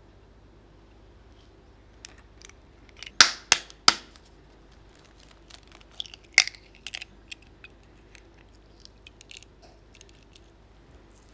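Eggshells being cracked and handled while separating eggs over a glass bowl: three sharp taps about three seconds in, another sharp click a few seconds later, then light scattered clicks and crackles of shell.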